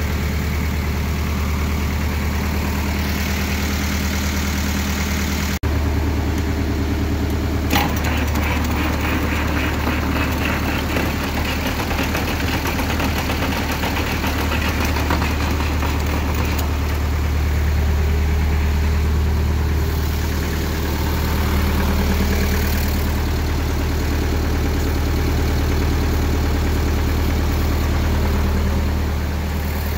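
A steady engine drone with a brief dropout about five and a half seconds in and a sharp click soon after.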